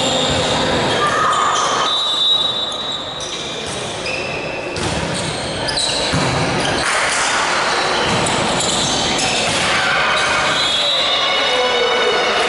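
Indoor volleyball rally in a reverberant gymnasium: the ball being struck, with the sharpest hit a little over two seconds in, sneakers squeaking on the court and players' voices and calls.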